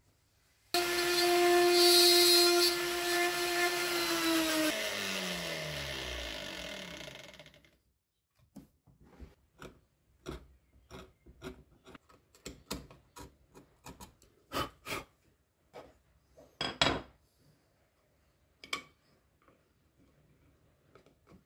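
A woodworking power tool's electric motor runs at a steady high pitch for about four seconds, then is switched off and winds down, its pitch falling until it stops. After that comes a string of light, irregular taps and scrapes of hand work on wood, with one sharper knock near the middle.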